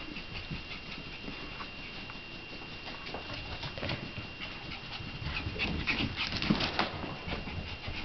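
Shiba Inu puppies playing and moving about on a rug: scattered scuffles and claw clicks mixed with small dog sounds, busiest in the second half.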